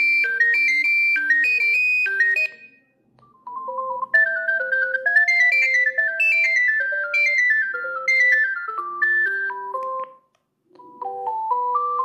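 Alcatel OneTouch 320 mobile phone playing its built-in ringtone previews: one electronic tune stops about two and a half seconds in, a second plays after a short pause, and a third begins near the end. Each is a simple two-part tune of beeping notes, a melody over a lower line.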